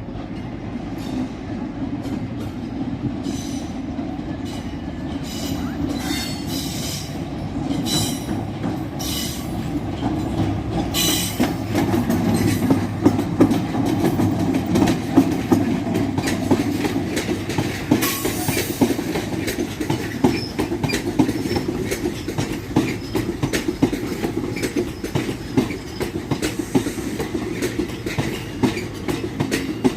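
A train running through the station, its wheels clattering over rail joints and pointwork. A steady low rumble grows louder towards the middle.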